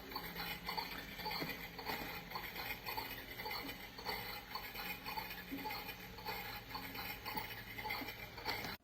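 Small toy dishes and cutlery clinking and knocking together in irregular light taps over a steady low hum.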